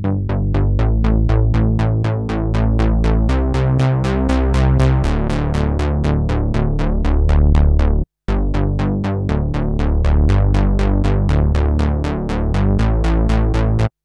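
Arturia SQ80 V software synthesizer, an emulation of the Ensoniq SQ-80, playing a rolling 80s-style synth bass patch. It is a fast, even run of short plucked notes whose bass pitch steps to new notes every second or two, while the filter cutoff is turned. The sound drops out for a moment about eight seconds in and stops abruptly at the end.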